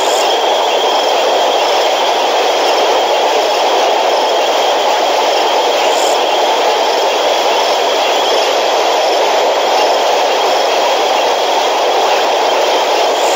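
Floodwater rushing steadily over the bank of a pan, an even, unbroken noise. A faint steady high whine runs under it.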